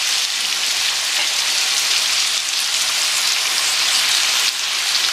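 Curry-seasoned duck meat frying in hot oil in a metal pot: a steady, dense sizzle.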